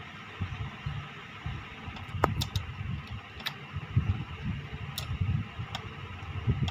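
Small plastic clicks and taps as a bobbin is dropped into the top-loading bobbin case of a Brother FS101 sewing machine and its clear bobbin cover is handled: a cluster of clicks about two seconds in, then single clicks near three and a half, five and six seconds, with one short falling squeak just after two seconds. A low background rumble runs under it.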